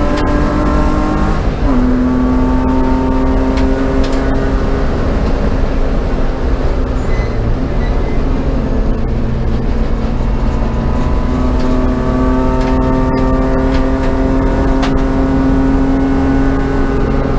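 A BMW race car's engine under load, its pitch climbing slowly as the car accelerates. The note eases off for a few seconds in the middle, then climbs steadily again.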